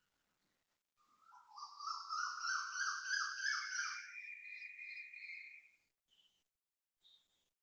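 Asian koel calling: a fast run of repeated notes that climb in pitch, starting about a second in and lasting about five seconds, followed by a couple of short single notes.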